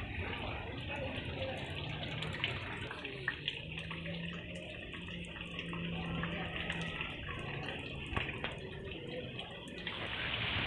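Steady watery hiss of rain and water on a waterlogged street, with a faint low hum in the middle. The hiss grows louder near the end.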